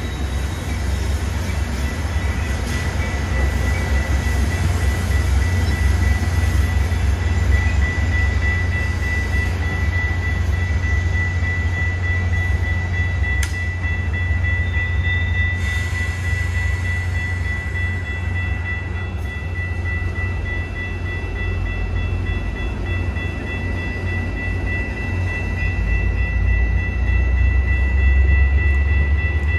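Metra commuter train running, a heavy continuous low rumble with a thin, steady high-pitched whine over it.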